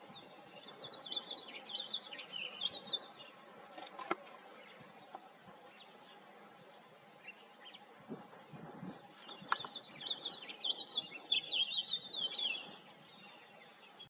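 A small songbird singing two bouts of quick chirpy notes that waver up and down, one starting about a second in and a louder one around ten seconds in. Two sharp clicks fall between the bouts.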